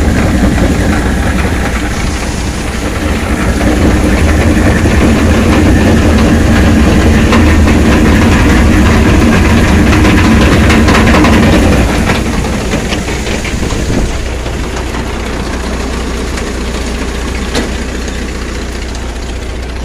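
A Farmall 450 diesel tractor and the Allis-Chalmers All-Crop 66 combine it pulls are running while combining, making a steady mechanical drone. The drone is loudest through the middle and drops off about twelve seconds in.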